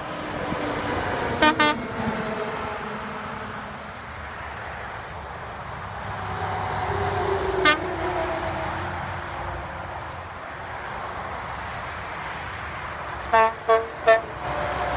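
Passing trucks sounding short air-horn toots. A Freightliner M2 112 with a Hadley H02000FD horn gives two quick toots about a second and a half in, a Freightliner Cascadia with the same horn gives one short toot near the middle, and a Kenworth T800 with dual Hadley H02101A horns gives three quick toots near the end. Diesel engine and tyre noise swells as each truck goes by.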